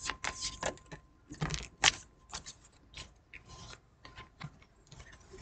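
A deck of tarot cards being shuffled and handled: a run of short card flicks and rustles, with a sharper snap about two seconds in.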